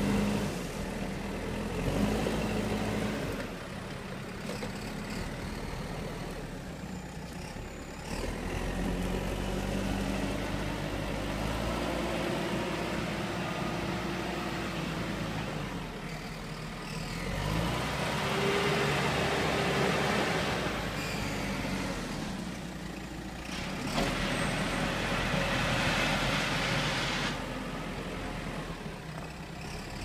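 A JCB backhoe loader's diesel engine runs throughout as the machine drives and works its front loader bucket. The revs rise and fall several times.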